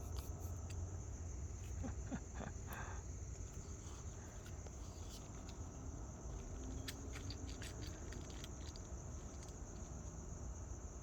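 Insects chirping in a steady, unbroken high-pitched chorus over a low rumble, with scattered faint ticks.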